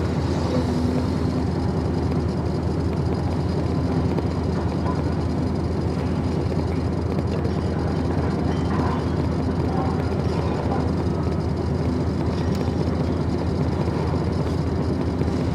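A vehicle's engine running steadily with a low rumble.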